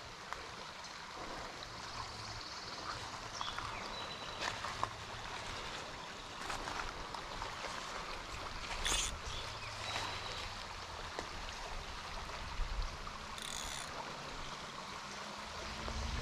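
Small spring creek running with a steady, soft babble, with a few faint clicks and brief high tones over it.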